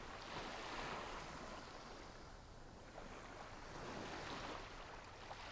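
Calm sea waves washing softly on a beach, faint, gently swelling and easing.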